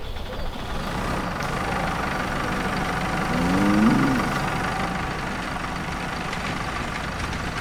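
An engine or farm machine running steadily, swelling slightly in the middle, with a short gliding, wavering call a few seconds in.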